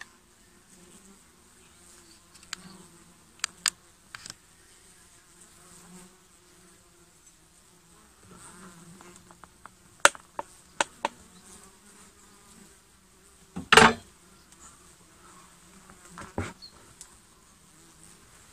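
Honeybees buzzing around a wooden hive, a faint steady hum. Over it come scattered wooden clicks and knocks as the hive's bottom slider with its white mite board is worked loose and pulled out, the loudest knock about three-quarters of the way in.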